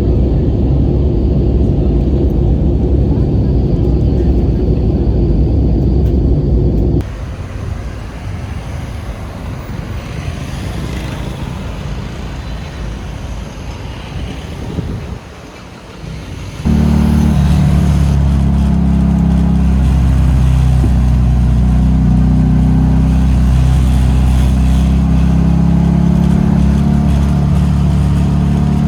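Classic Fiat 500's two-cylinder engine running, heard in three abruptly cut stretches: loud and low at first, then cut about seven seconds in to a quieter, hissier stretch, then from a little past halfway a loud, steady engine note.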